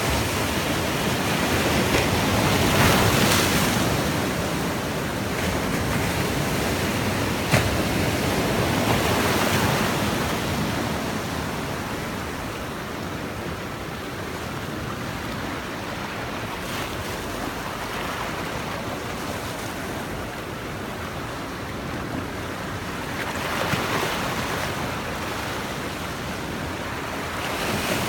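Sea waves washing onto the shore, the surge swelling and easing as each wave comes in. A single sharp click sounds about seven and a half seconds in.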